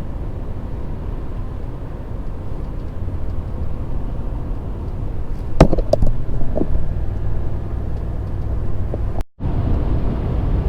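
Vehicle driving along: a steady low engine and road rumble, with a few sharp knocks a little past halfway.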